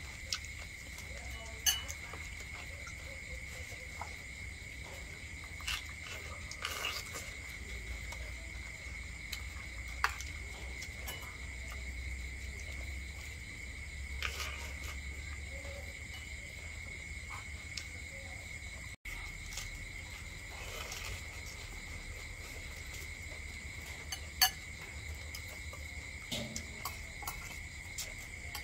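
A steady, high-pitched insect drone that holds one pitch throughout, with a few sharp clicks and knocks scattered through it.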